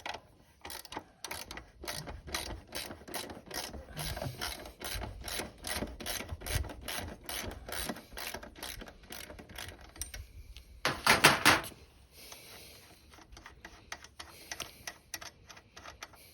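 Ratchet wrench clicking as it loosens and spins off the 19 mm rear axle nut of a Honda Monkey 125, in a long run of quick clicks. About eleven seconds in there is a brief, loud metallic clatter.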